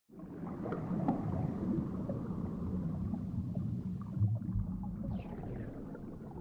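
Underwater bubbling of a scuba diver's exhaled air, streaming from the regulator and around a flooded mask: a dense, low, crackling bubble noise.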